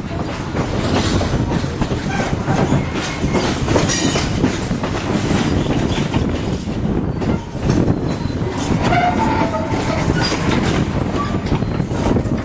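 Ontario Northland mixed train running on the rails, its wheels rumbling and clacking steadily over the rail joints.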